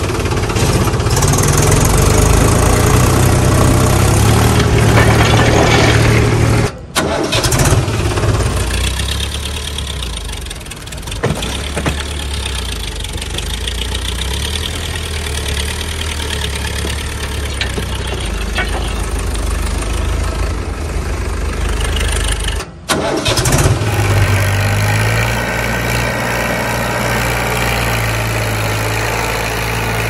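Tractor engine running and idling steadily, a sound laid over die-cast model tractors that have no motor of their own. The sound cuts out briefly twice, where the audio is edited.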